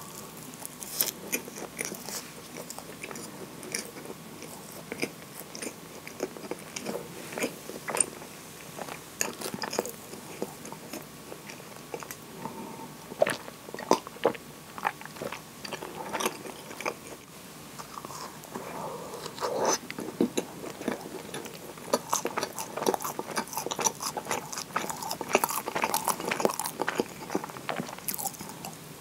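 Close-miked eating sounds: a person biting and chewing soft, moist scones, with many short clicks throughout, and a drink of coffee milk partway through.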